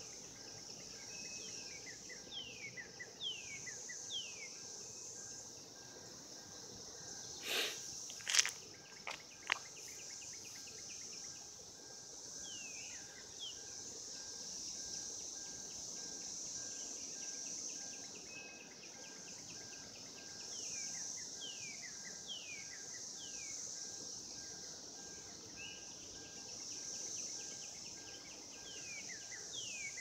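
Steady high-pitched chorus of insects, with runs of short falling whistled notes from a bird over it. Several sharp knocks a quarter of the way in stand out as the loudest sounds.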